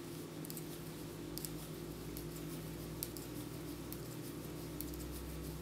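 Metal knitting needles clicking lightly and irregularly as stitches are worked along a row, over a faint steady low hum.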